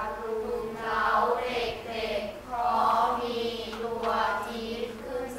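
A class of students reading a sentence aloud in unison, their voices blending into a drawn-out, sing-song chant in several phrases.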